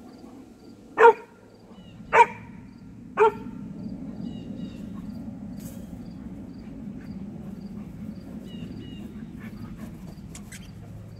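Bullmastiff play barks: three deep, loud barks about a second apart, then quiet.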